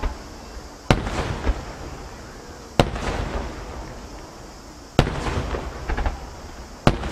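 Aerial firework shells bursting in sequence: a sharp boom about every two seconds, four in all, with smaller bangs in between, each boom trailing off into a fading rumble.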